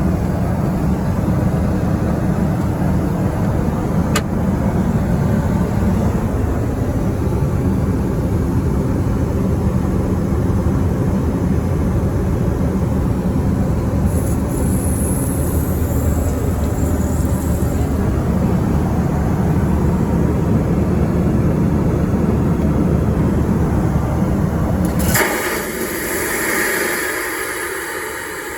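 Toilet flushing: a long, loud, steady rush of water, which about 25 seconds in gives way to a higher-pitched hiss as the bowl empties and the water runs on.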